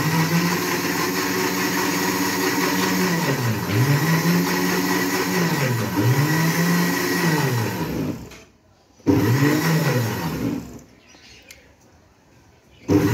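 Electric blender running, blending papaya and water into juice, its motor pitch sagging and rising again several times. It stops about eight seconds in, runs again for about two seconds, stops, and starts once more just before the end.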